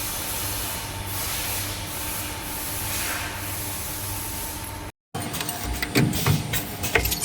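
Wire ring-making and butt-welding machine running: a steady hiss and hum, then, after a short break about five seconds in, a quick series of mechanical clicks and knocks.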